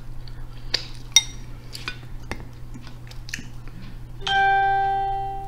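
Light clicks and cracks of snow crab shell and a fork as meat is pulled from boiled crab legs. About four seconds in, a single clear ringing chime starts suddenly and slowly fades.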